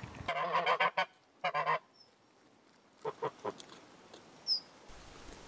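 Domestic poultry giving two wavering honking calls, then a few sharp taps of beaks pecking at a hollowed marrow.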